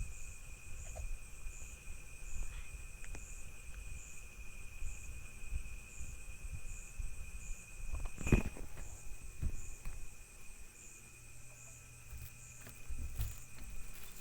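Insects calling: a steady high trill with a higher chirp repeating about every two-thirds of a second. Low rumble and occasional knocks or thumps run underneath, the loudest about 8 seconds in.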